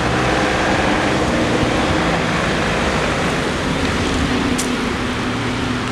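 Steady traffic noise with a low engine hum. One sharp click comes about four and a half seconds in.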